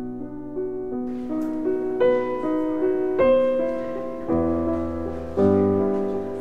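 Background piano music, slow held notes and chords.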